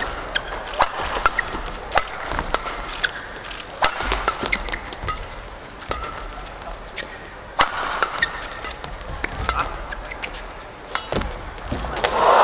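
Badminton men's doubles rally: sharp racket strikes on the shuttlecock at irregular intervals, with short shoe squeaks on the court floor between them over a low crowd murmur. Near the end the rally finishes and the crowd breaks into applause.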